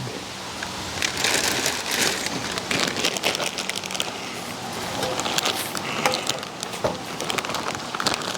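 Packaging rustling and crinkling as it is handled, with many small sharp crackles, busiest in the first few seconds.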